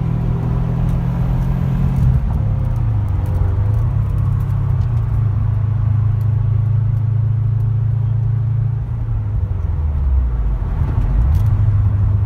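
2013 Subaru STI's turbocharged 2.5-litre flat-four running under way, heard from inside the cabin with road noise. The engine note drops about two seconds in, holds steady, then sinks and climbs again near the end.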